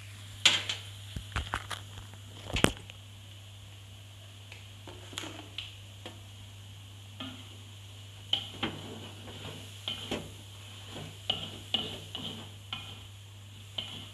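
Metal spatula scraping and knocking against the inside of a metal wok while stir-frying mustard greens with tofu and egg, in irregular strokes. The loudest knocks come in the first few seconds, with a busier run of scraping about two-thirds of the way through.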